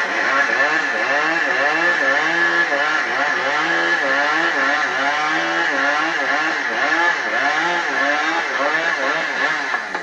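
Two-stroke chainsaw running at high revs, its engine pitch dipping and rising again over and over as it is worked through wood, the way a saw sounds when limbing or bucking felled trees.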